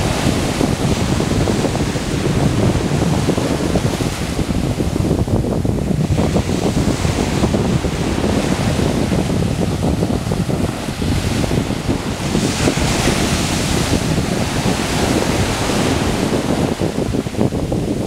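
Mediterranean Sea surf washing onto the shore, with wind buffeting the microphone. The hiss of a wave's wash swells about two-thirds of the way through.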